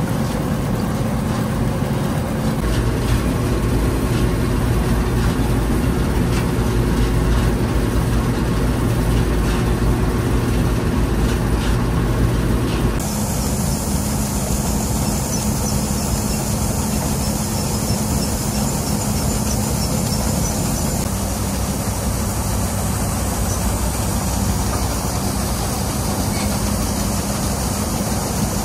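Bizon Super Z056 combine harvester's six-cylinder diesel engine running steadily. About halfway through the sound changes abruptly, with less deep rumble and a high hiss added.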